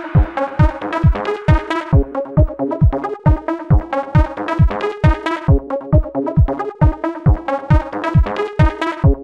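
Electronic dance music with a steady kick drum at about two beats a second under repeating synth chords.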